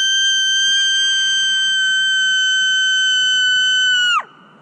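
A woman screaming one long, high-pitched note at a steady pitch, breaking off with a quick drop in pitch near the end.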